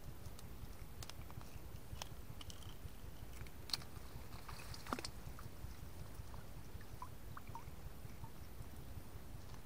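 Gill net being handled by hand at the water's edge to free a caught fish: scattered small clicks and rustles over a steady low rumble, with two sharper knocks about four and five seconds in.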